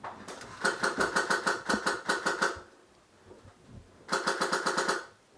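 Airsoft rifle firing two rapid full-auto bursts: a long burst of about two seconds, then a shorter one of about a second.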